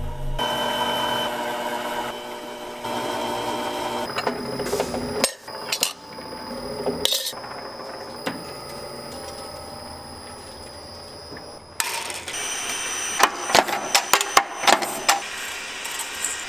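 Small jewellery-making machines running in a series of short clips: a steady motor hum, then a high thin whine, then a run of sharp clicks near the end.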